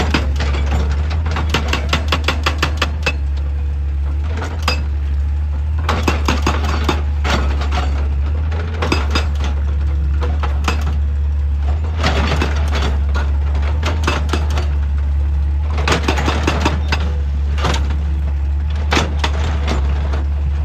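Rock clattering and cracking in repeated bursts of sharp knocks, every few seconds, as an excavator breaks and digs a rocky hill. A steady low engine drone runs underneath.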